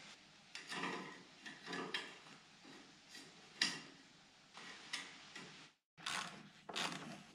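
Quiet handling sounds of a tape measure and hands on a steel vehicle frame: a string of short clicks, taps and knocks spaced irregularly, with a brief dropout about six seconds in.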